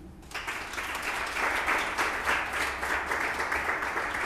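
Audience applauding. The clapping breaks out a moment in and keeps up steadily.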